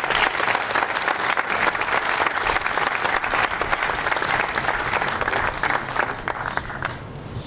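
Audience applauding, a crowd of many hands clapping steadily, dying away near the end.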